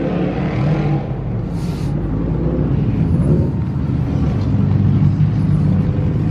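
A car engine running steadily, a low hum that grows a little louder in the second half.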